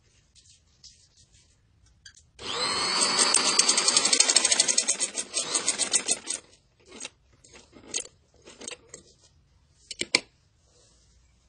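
Electric sewing machine running for about four seconds, its needle going in a rapid, even rhythm that slows just before it stops. A few short clicks and rustles follow.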